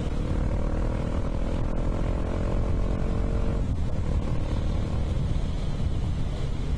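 Wind buffeting on the microphone while riding a Suzuki DR650 single-cylinder motorcycle at about 100 km/h: a heavy, steady rumble from turbulence off the windscreen. The engine's steady note shows through at first and fades about three and a half seconds in.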